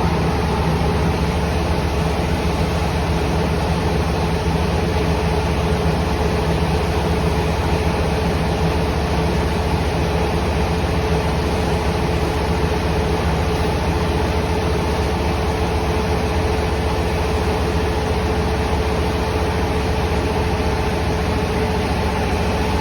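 Rice-milling machinery running: a steady mechanical hum with a held tone over a low rumble.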